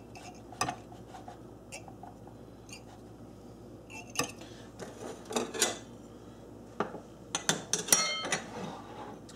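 A butter knife scraping and clinking around the inside edges of ceramic ramekins, in scattered separate strokes. Near the end a china plate clinks and rings briefly as it is picked up and set down on the counter.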